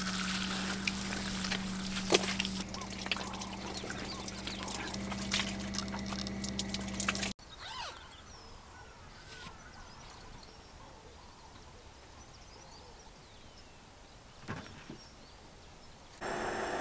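Camper's outdoor handheld shower spraying water, with a steady motor hum under the hiss, cutting off suddenly about seven seconds in. Then quiet outdoor ambience with faint chirps.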